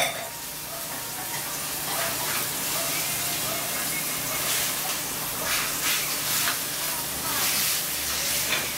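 Floured beef shank slices searing in hot olive oil in a pan: a steady sizzle, flaring briefly a few times as tongs move the meat.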